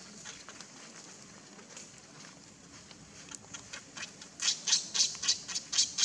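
Baby macaque squeaking: a few scattered short, high squeaks, then a quick run of them about four and a half seconds in.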